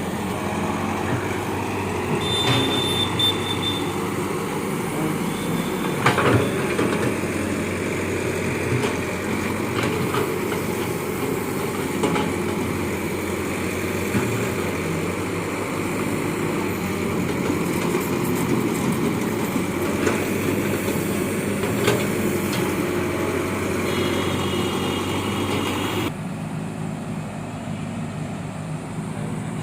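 Heavy diesel excavator running steadily under working load, with a few sharp metal clanks from the machine's work. A brief high whine or beep sounds twice, and the level drops suddenly near the end.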